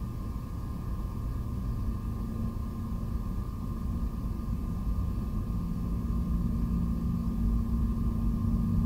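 Low, steady outdoor rumble of vehicle noise, slowly growing louder, with a steady hum running through it.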